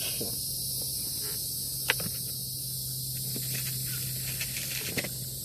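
Steady high-pitched buzz of insects, with a low steady hum underneath and a couple of faint clicks.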